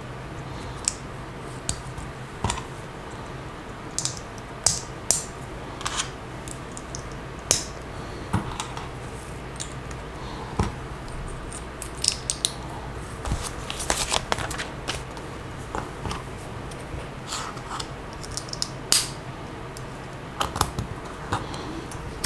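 Plastic Lego pieces clicking and rattling as they are handled and snapped together, in irregular sharp clicks over a faint steady hum.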